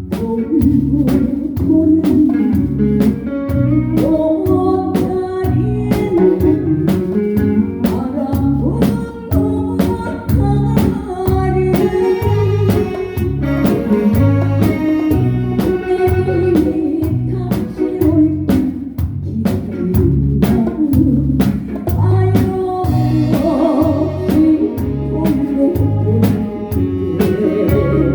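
Live band playing a song through in rehearsal: a drum kit keeping a steady beat under bass and melody instruments.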